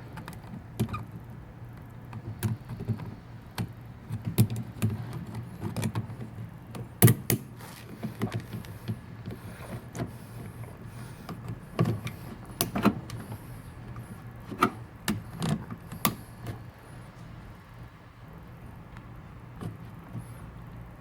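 Channel-lock pliers working a hose clamp onto a washing machine's drain-pump hose: irregular clicks, knocks and scrapes of metal on metal and plastic, with a low steady hum underneath.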